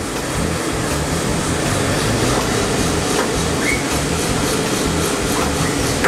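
Stronghold S9X coffee roaster running mid-roast, a 4 kg batch of beans tumbling in its drum with the blower on: a steady, rhythmic mechanical rumble with a few faint clicks. The beans are still green, in the drying phase of the roast.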